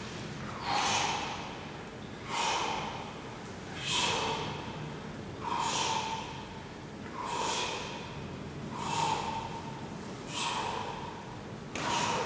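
Forceful breaths out in rhythm with sit-up crunches: a short hissing rush of air on each rep, about one every second and a half.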